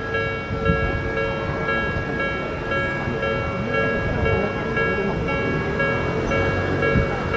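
Japanese level-crossing warning bell ringing in an evenly repeating electronic tone, over the rumble of an Odakyu commuter train running through the crossing.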